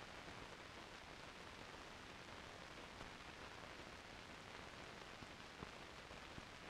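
Near silence: the steady hiss of an old film soundtrack, with two faint clicks near the end.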